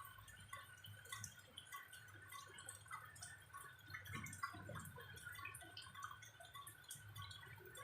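Faint rain dripping: many irregular small drops falling, over a low steady hum.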